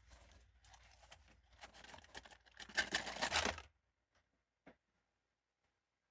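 Blind-box toy packaging being torn open and crinkled for about three and a half seconds, loudest near the end, followed by a couple of light taps.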